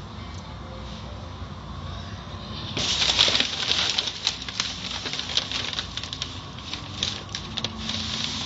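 Automatic car wash heard from inside the car: a low machinery rumble, then about three seconds in the wet cloth strips of the wash curtain start slapping and swishing across the windshield with spraying water, many quick slaps in a loud hiss that eases near the end.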